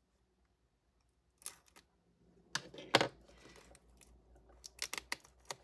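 A hard plastic case handled on a wooden desk: a series of sharp plastic clicks and taps, starting about a second and a half in, loudest about three seconds in, with a quick cluster near the end.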